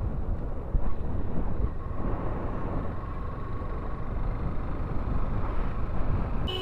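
Motorcycle under way, its engine running steadily under a heavy low rumble of wind on the microphone.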